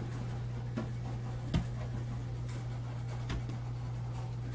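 Steady low hum in a small quiet room, with a few soft taps and rubs on an inflated exercise ball as the dog holds its paws on it and the handler steadies it; the clearest tap comes about one and a half seconds in.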